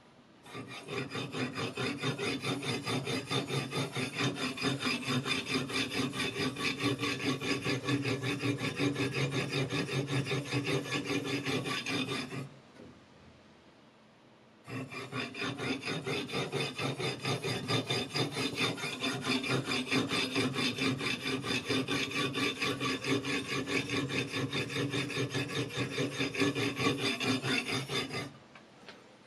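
A whetstone on a guided-rod knife sharpener rasping along the edge of a Chinese chef's knife in rapid, even back-and-forth strokes. It runs in two long bouts with a pause of about two seconds between them.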